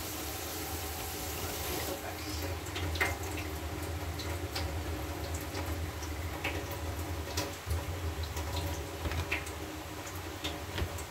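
Steady kitchen hiss over a low hum, with a few light clicks and taps scattered through it.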